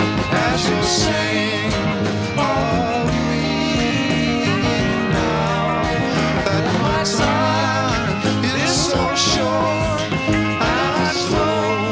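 Instrumental passage of a late-1960s rock band recording: a lead line with wavering, bending notes over bass and drums, with regular cymbal hits.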